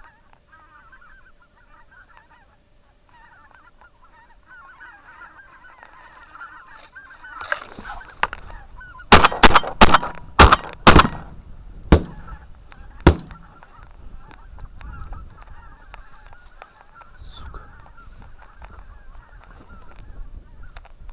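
A flock of geese honking, the calling building up as the flock comes close. Then a rapid volley of about seven shotgun shots over some four seconds, and the geese keep calling after the shooting.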